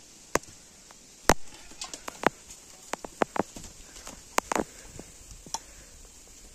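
Close-up eating sounds: sharp, irregular clicks and crackles as a small piece of food is bitten and picked apart with the fingers.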